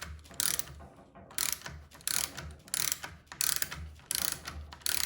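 Large-geared ratcheting box wrench clicking as it is swung back and forth on a 3/4-inch fastener, its pawl giving a burst of clicks on each return stroke, about one stroke every 0.7 seconds.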